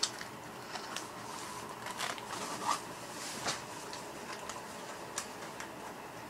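A sheet of skateboard grip tape and its paper packaging being handled and carefully pulled out: soft, scattered rustling and crinkling with a few light clicks.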